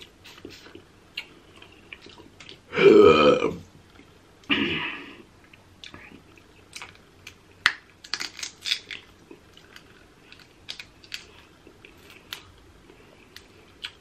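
A loud burp about three seconds in, followed by a shorter second one. After that come scattered small clicks and snaps of eating.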